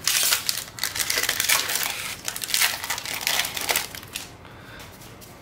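Foil wrapper of a Magic: The Gathering booster pack being torn open and crinkled by hand, dense crackling for about four seconds before it stops.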